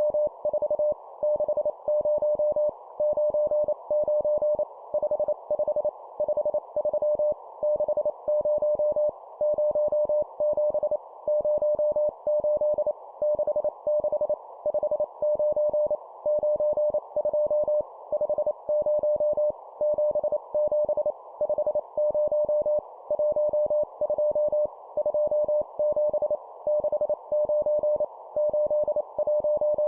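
Morse code (CW) practice tone sent at 25 words per minute: a single steady beep keyed on and off in quick dits and dahs, spelling out number groups, over a faint soft hiss.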